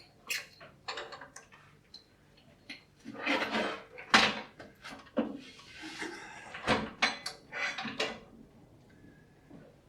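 Irregular knocks, clunks and short scrapes of wooden bowls and metal lathe fittings being handled, as a cut-out bowl is fitted onto the mother bowl used as a jam chuck.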